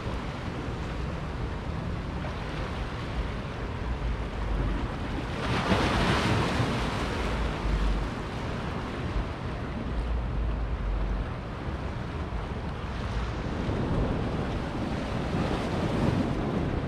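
Ocean surf washing against the shore, with wind buffeting the microphone. A louder surge of the surf comes about six seconds in.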